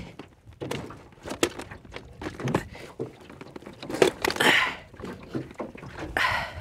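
Irregular clicks and knocks of fishing gear being handled in a small aluminium boat, with a short rush of noise about four seconds in and another near the end.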